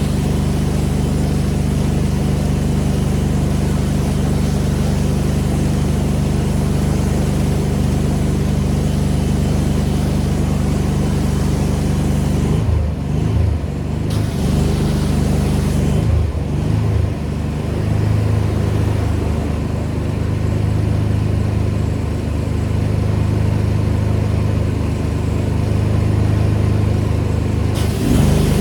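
Pressure washer engine running steadily under load with the hiss of the spray on top. A little before halfway the spray hiss drops out and the engine note wavers, as when the trigger is let go, and the hiss stays weaker until it comes back near the end.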